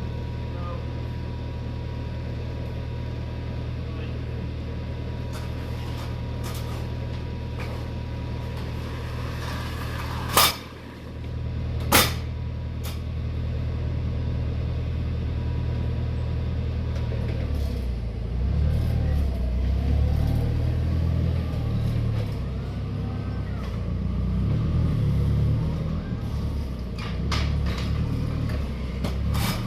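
Forklift engine idling steadily, with two sharp knocks about ten and twelve seconds in; from about eighteen seconds the engine note rises and falls unevenly as the machine is worked.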